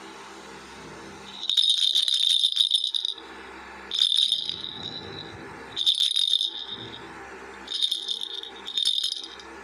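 Plastic toy ball hanging in a mesh net rattling in five short bouts as a kitten bats and paws at it; the first bout is the longest, about two seconds.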